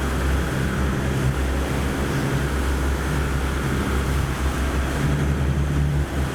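Fishing boat's engine running with a steady low drone while trolling, under a constant wash of wind and water noise.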